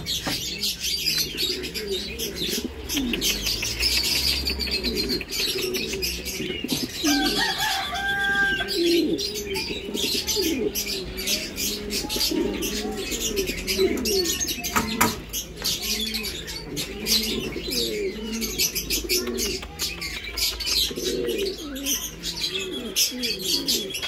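Several caged domestic pigeons cooing at once, their low, rolling calls overlapping continuously, with frequent rustling and clicks from the birds moving about.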